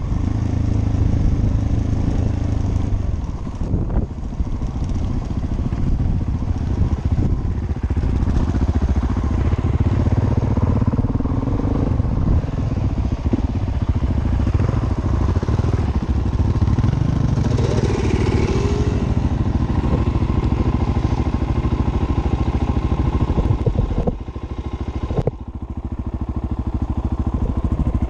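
Suzuki DR-Z400S single-cylinder four-stroke engine running steadily under way on a dirt track, its sound dropping briefly near the end.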